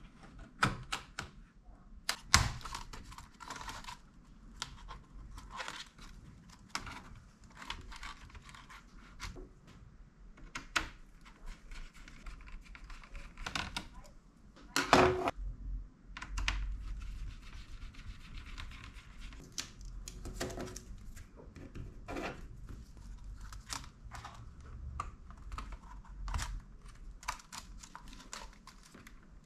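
Plastic clicks and snaps as a Lenovo IdeaPad Flex 2-14 laptop keyboard is pried loose from its retaining clips, the keys rattling under the hands. Two louder snaps, one about two seconds in and one about halfway.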